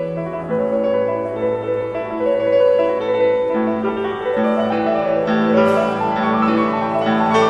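Piano playing classical music: held notes and chords that change every second or so, the sound growing fuller and slightly louder toward the end.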